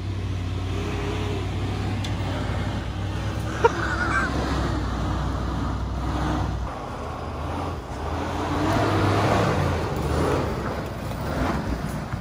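Toyota Land Cruiser 80 Series engine running at low speed as the truck crawls up a rough dirt trail, with a single sharp knock about three and a half seconds in. The steady low hum lightens about two-thirds of the way through.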